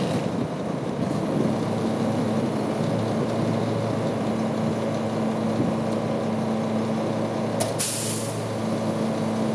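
2005 Mack CV713 garbage truck's diesel engine idling with a steady drone. About eight seconds in, a short hiss of air is let off from the truck's air brake system.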